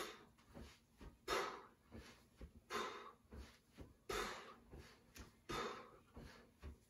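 Forceful breaths during kettlebell swings, a strong exhale about once every second and a half in rhythm with the swings, with fainter breaths between them.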